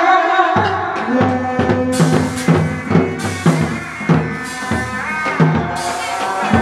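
Hát bội opera accompaniment music: a sustained melody line, joined about half a second in by a regular drum beat and a low bass line.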